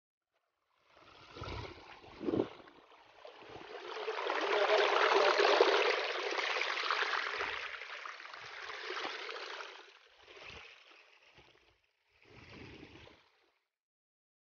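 Rushing water, like a rain-fed stream, swelling about three seconds in and fading away near the end, with a few dull thumps.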